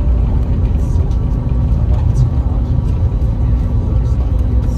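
Cabin noise of an Airbus A321neo rolling on the ground after landing: a steady low rumble with a faint steady hum and a few faint ticks.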